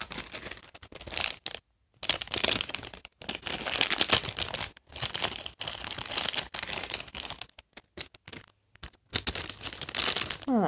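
A toy blind bag being crinkled and torn open by hand: irregular bursts of packaging rustle and tearing with short breaks between them.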